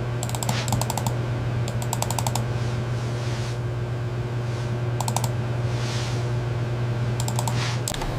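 A steady low hum with short bursts of rapid clicking, like typing on a keyboard, four times, and a couple of soft whooshes in between.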